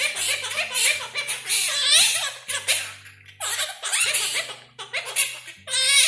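Quaker parrot chattering in quick high-pitched bursts with giggle-like, talking mimicry, captioned as it repeats "宝贝" (baby). A soft background melody plays underneath.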